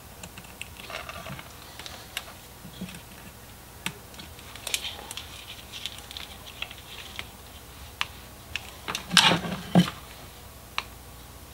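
Scattered small clicks, taps and rustles of hands handling wiring and connectors while hooking up a fog light for a bench test, with a couple of louder knocks about nine seconds in.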